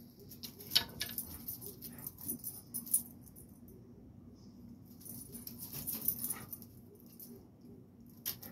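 Two dogs, a blue pit bull and a small black-and-tan dog, moving about together on concrete: two spells of irregular scraping and clicking, one starting just after the beginning and one in the middle, with a couple of sharp clicks.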